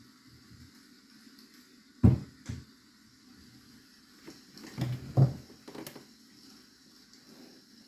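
Several soft knocks and thumps of objects being handled on a desk: two about two seconds in, then a cluster of three or four a little past the middle, over a faint steady background.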